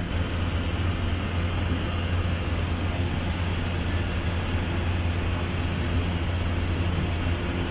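Cessna Caravan's single Pratt & Whitney PT6A turboprop engine and propeller running steadily in flight, heard inside the cockpit as a deep, even drone under a constant rush of air.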